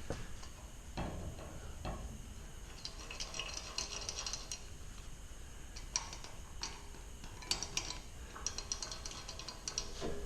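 Light metallic clicking and clinking of tools and small metal parts being handled, scattered irregular ticks with no motor running.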